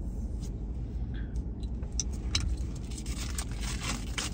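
Hands opening a small package, with light crinkling, scraping and crisp clicks that pick up about two seconds in, over a steady low rumble inside a truck cab.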